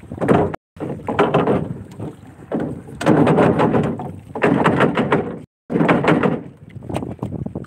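Fishing net being hauled by hand into a boat's hull in repeated pulls, about seven rushes of rustling and scraping as the mesh drags over the wood, with wind on the microphone.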